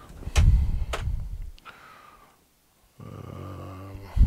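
Plastic accessory tray on a sewing machine's free-arm section being handled and pushed shut. A loud thud with clicks comes about half a second in, then a low buzzing scrape for about a second near the end, and another thud as it closes.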